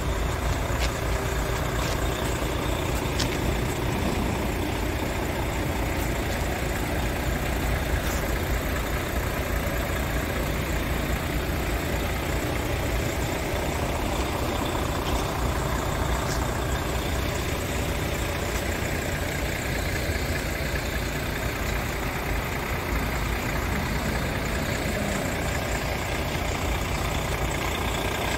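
Scania R520 tractor unit's V8 diesel engine idling steadily, with a low, even rumble.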